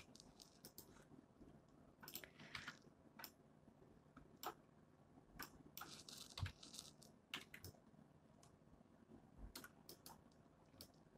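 Faint, irregular clicks of a computer keyboard and mouse being used, over quiet room tone.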